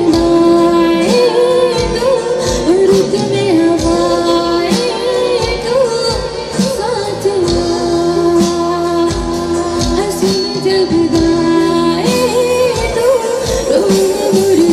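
A woman singing a Hindi film song live through a microphone and PA, holding long notes with vibrato and gliding between pitches, backed by a band with a drum kit keeping a steady beat.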